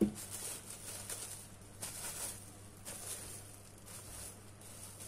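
Plastic cling film over a bowl rustling and crinkling faintly as gloved hands smooth it down around the rim, in a few soft rustles.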